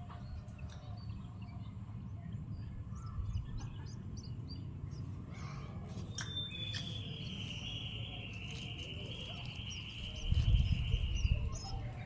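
Long-tailed shrike (cendet) chick calling: scattered short chirps, then one long buzzing note of about five seconds that falls slightly in pitch. A low rumble is heard near the end.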